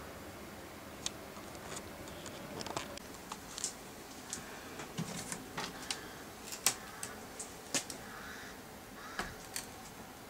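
Irregular light clicks and taps, about fifteen of them scattered unevenly, with a few soft scuffs over a faint steady hiss.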